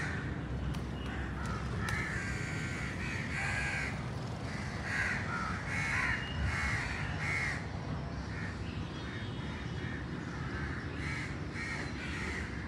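Crows cawing outdoors, many short harsh calls repeating throughout, some overlapping, over a steady low background noise.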